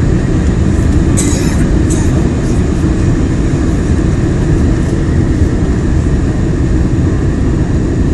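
Steady cabin roar of a four-engine Boeing 747-400 on short final approach: engine and airflow noise heard from inside at a window seat. There are a couple of brief clicks or rattles a little over a second in.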